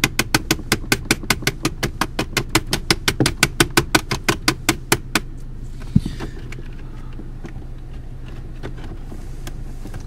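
Rapid light tapping with a mallet on the body control module under the dash, about five or six taps a second, stopping about five seconds in, then one single harder knock about a second later. This is a tap test on a module suspected of failing to drive the door locks. A steady low hum runs underneath.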